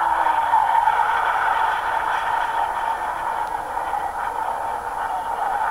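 Display aircraft engine noise carried across an airfield: a steady, hazy rush with no clear pitch.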